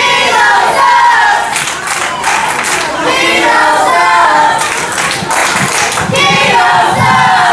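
Wrestling crowd chanting together in a rhythmic, sing-song chant, with hand claps mixed in.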